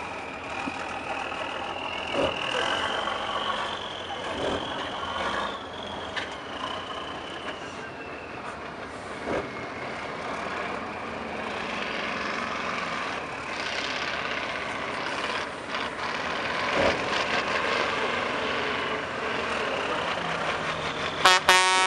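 Six-wheeled trial truck's engine working and revving under load as it crawls over rough, rocky ground, with a high whine rising and falling and scattered knocks. Near the end a short, loud horn blast.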